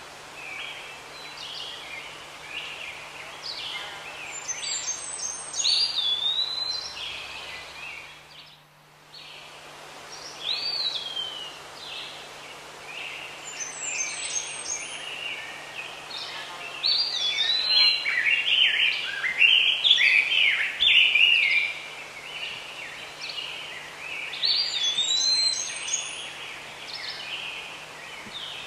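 Wild birds calling and singing. A phrase of very high chirps ending in a down-curving whistle comes back about every ten seconds, with a busier run of overlapping calls about two-thirds of the way through. The sound drops out briefly about eight seconds in.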